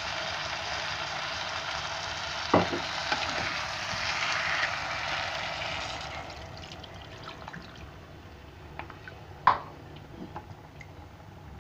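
Chicken pieces sizzling in hot oil in a pan, stirred with a spatula. About halfway through, water is poured in and the sizzle dies down to a quieter simmer, with a couple of sharp knocks of the spatula against the pan.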